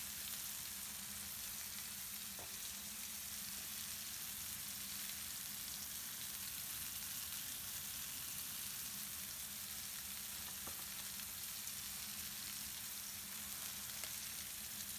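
Two chicken breasts sizzling steadily as they sear in smoking-hot olive oil in a Lodge cast iron skillet.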